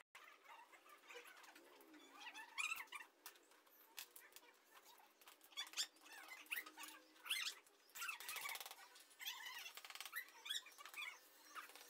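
Faint clicks and taps of ceramic tile pieces being handled and pressed into a wet mortar bed, mixed with repeated high squeaky chirps.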